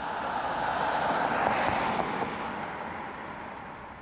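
A motor vehicle passing close by: a swell of engine and tyre noise that builds, peaks about halfway through and fades away.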